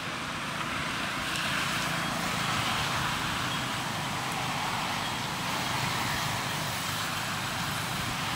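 Steady outdoor background noise, a continuous even hiss with no distinct calls or knocks.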